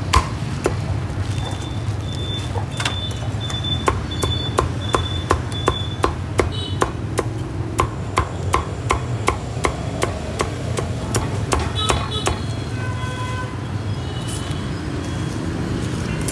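Cleaver chopping crispy-skinned roast pork on a thick wooden chopping block: a steady run of sharp chops, about two a second, that stops about three quarters of the way through. A low traffic rumble runs underneath.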